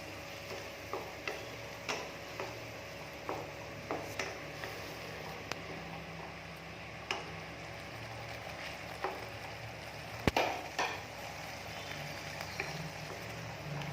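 Garlic and ginger paste with spices sizzling in a pan while a spoon stirs and scrapes it, with scattered taps against the pan and one sharper knock about ten seconds in.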